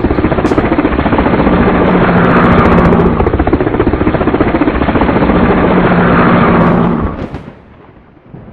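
Loud sound effect of rapid, even fluttering pulses over a low hum, like a helicopter rotor, swelling twice and fading out near the end.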